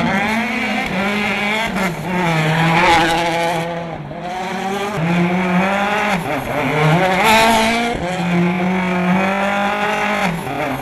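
Citroën DS3 WRC rally car's turbocharged four-cylinder engine revving hard, its pitch rising and dropping again and again as the throttle is worked, with tyres squealing as the car slides on tarmac.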